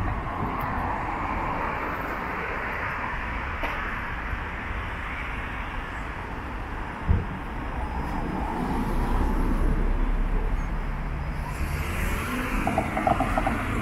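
City street traffic on a wide avenue: a steady hum of car engines and tyres, swelling as a vehicle passes partway through. There is a short thump about seven seconds in.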